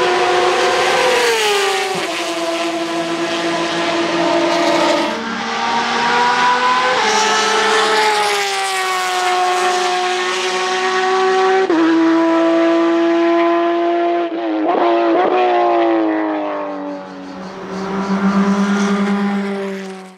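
Porsche 911 RSR GTE's flat-six racing engine running hard on track. Its pitch climbs, then drops sharply at each upshift, several times over. The sound cuts off at the end.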